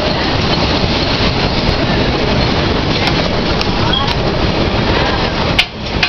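Shay geared steam locomotives passing at close range: a loud, steady mix of steam and clanking running gear, with one sharp knock about five and a half seconds in.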